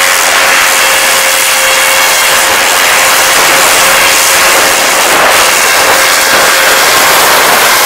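Loud, steady rush of sea surf breaking on a shingle beach, mixed with wind noise on the microphone.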